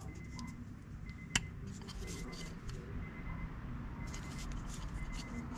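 A small cardboard box being handled in the hands, with intermittent crinkling and rustling and one sharp click a little over a second in.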